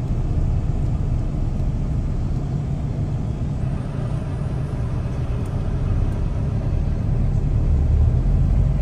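Car driving along a highway, heard from inside the cabin: a steady low rumble of engine and road noise that grows a little louder near the end.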